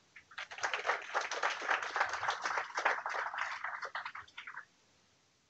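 Audience applauding, starting about half a second in and dying away about a second before the end.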